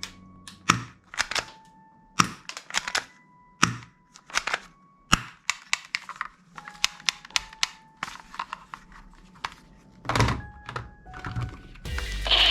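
Toy gun mechanisms clicking and snapping in quick irregular clusters, from cocking, trigger pulls and shots, some clicks with a short faint ring. A louder steady hiss-like noise sets in just before the end.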